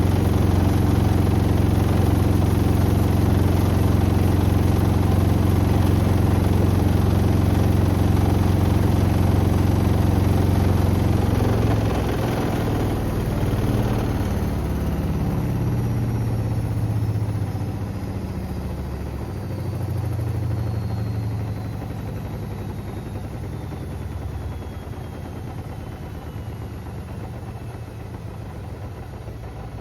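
Beko WM74135 washing machine on a fast spin with a steady low hum. About twelve seconds in the spin ends and the drum slows down, the hum breaking up and fading with a faint falling whine.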